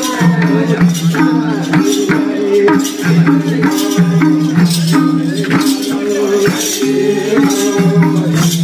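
Bhailo festival music: held melody notes stepping from pitch to pitch over a steady beat of jingling, rattling percussion.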